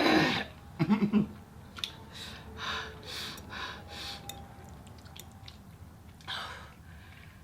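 Mouth and eating noises over a bowl of extremely spicy instant noodles. A sharp breathy burst comes right at the start and a short pitched vocal sound about a second in, then a run of softer chewing and breathing noises, with one more breathy burst near the end.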